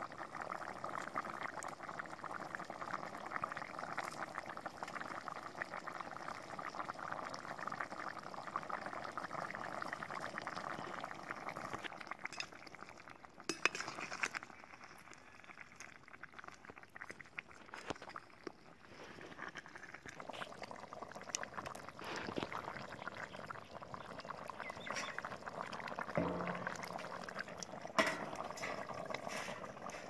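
Curry simmering and bubbling in a metal cooking pot over a wood fire. Partway through, a long metal ladle stirs it, giving scattered metal clinks against the pot, with the loudest clink near the end.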